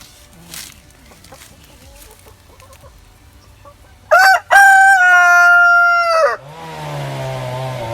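Chickens clucking softly, then a rooster crows loudly about four seconds in: a short note followed by one long held note of about two seconds. Just after the crow a chainsaw starts running steadily.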